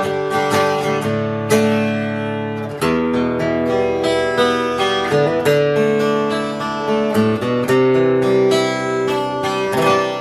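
Freshly strung Telecaster-style electric guitar played with picked single notes and strummed chords, its intonation not yet set. The playing cuts off suddenly at the end.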